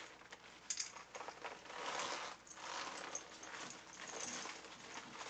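Rustling and crinkling of PVC clothing layered over a sauna suit as hands work at a sleeve cuff, in uneven swishes with a few small clicks.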